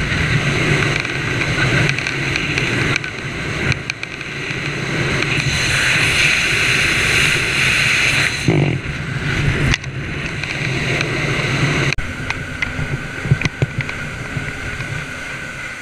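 Fast rescue boat running at speed through waves: a steady engine drone under loud rushing water and spray against the hull, with a few abrupt changes where the sound jumps.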